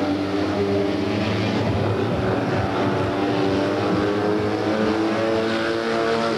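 Several Fiat 126p racing cars with air-cooled two-cylinder engines running hard at once, their overlapping engine notes drifting up and down in pitch as they lap the track.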